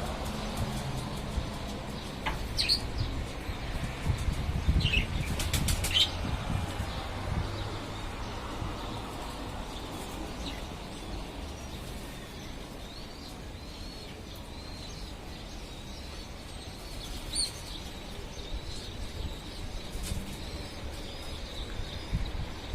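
Pigeons flapping their wings, over a steady low wind rumble on the microphone, with a few short high chirps.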